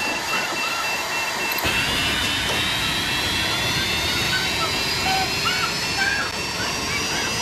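Compressed air hissing into a decompression chamber as it is over-pressurised. A repeating beep sounds for about the first second and a half, then a high whine rises steadily in pitch. Short cries from the man trapped inside break through the noise.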